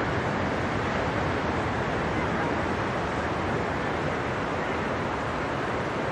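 Ocean surf: waves breaking and whitewater washing, a steady rushing noise.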